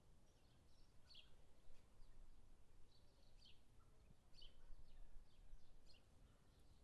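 Faint, scattered high bird chirps, a few each second, over a low, steady rumble.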